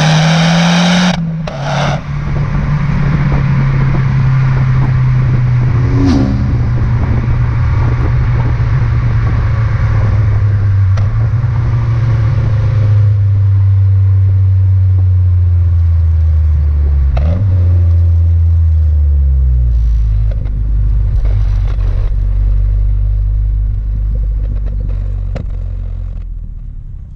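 Mazda 6 MPS's turbocharged 2.3-litre four-cylinder engine running under way: a short rise in revs at the start, then a steady note that slowly drops in pitch as the car slows, over road noise, with a few knocks. The sound fades out near the end.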